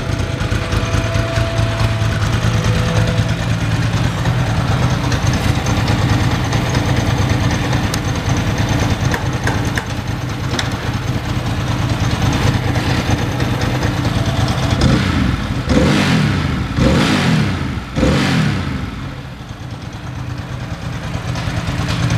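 1999 Ducati ST4's 916 cc V-twin idling steadily, then blipped three times in quick succession about two-thirds of the way through before settling back to idle.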